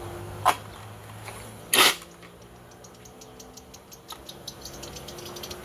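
Small parts and hand tools being handled while a chainsaw's carburetor is taken apart: a sharp click, then a louder clack about two seconds in, followed by faint, rapid, even ticking.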